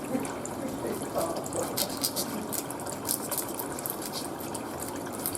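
Kitchen tap water running steadily, with a few light clicks partway through.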